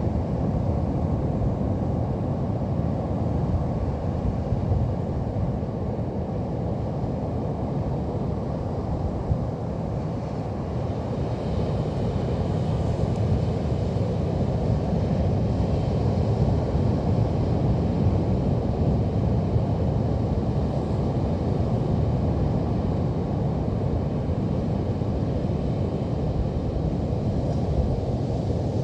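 Steady low rumble of Pacific Ocean surf breaking on the beach, growing a little louder about a third of the way in.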